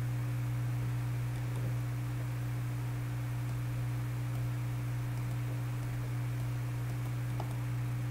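Steady low background hum with a faint hiss over it, the constant noise floor of the recording. One faint click comes about seven seconds in.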